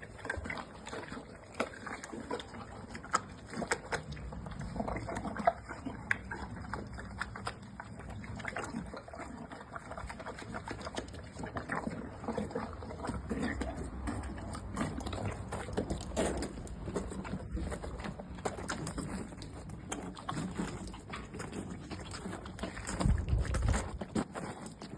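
Noises from a pony: a steady run of irregular clicks and crunches over a low rumble, with a louder low-pitched stretch near the end.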